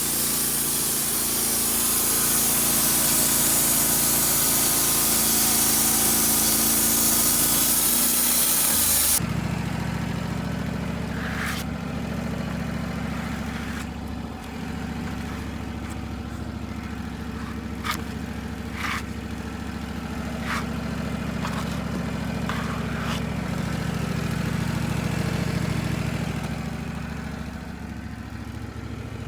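Engines running throughout. For the first nine seconds a loud engine runs under a bright hiss. Then the sound cuts abruptly to a lower-pitched engine running steadily, with several sharp clicks or knocks scattered through it.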